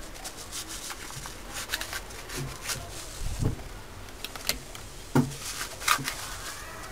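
Metal spoon scooping baking soda out of a carton wrapped in a plastic bag: scattered spoon taps and clicks with crinkling plastic, the sharpest about five and six seconds in.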